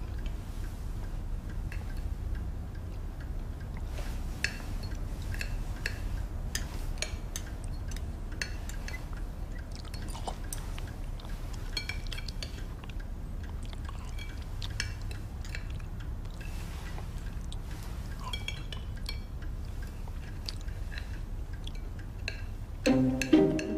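Cutlery clinking and tapping on plates, with small chewing noises, over a low steady hum. Music comes in near the end.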